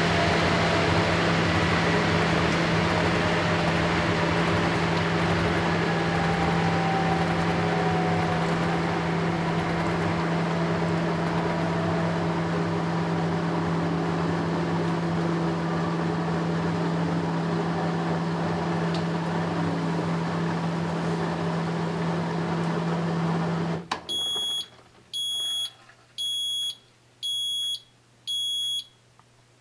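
Fisher & Paykel AquaSmart top-loading washing machine in its final spin: a steady whir with a low hum that cuts off abruptly about 24 seconds in. Then five short high-pitched beeps, about one a second, signal the end of the wash cycle.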